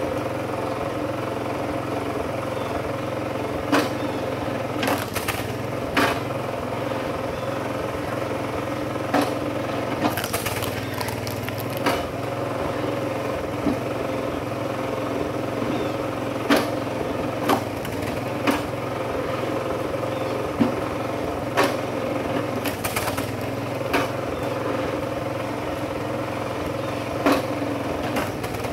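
Kinetic Super Split log splitter's small engine running steadily on its open belt-and-pulley drive, with sharp wooden cracks and knocks every few seconds as rounds are split and split firewood is thrown onto the pile.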